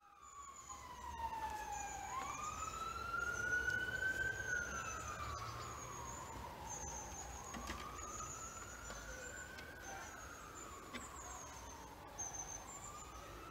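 Emergency vehicle siren wailing, its pitch rising and falling slowly, about one sweep up and down every five seconds. Birds chirp high above it throughout.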